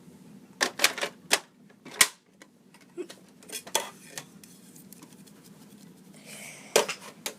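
Irregular clicks and knocks of hard parts being handled on a vacuum cleaner. They come in small clusters, a few near the start, a couple in the middle and a few near the end.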